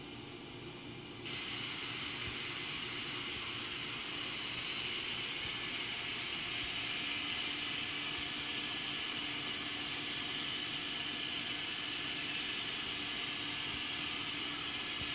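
Rotary table of a Kuraki KBT-11WDX CNC horizontal boring mill turning under power: a steady hissing whine that switches on abruptly about a second in and holds steady.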